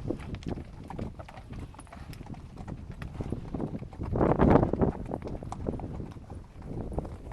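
Hooves of pack mules clopping irregularly on a rocky trail, with a louder rush of noise about four seconds in.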